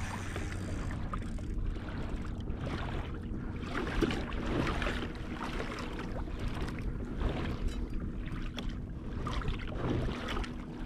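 Water rushing and slapping along a fishing kayak's hull as it moves through light chop, with wind on the microphone.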